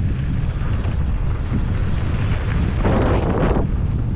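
Wind buffeting an action camera's microphone on a mountain bike descent, a steady low rumble mixed with tyre noise on the dirt trail, with a louder rush about three seconds in.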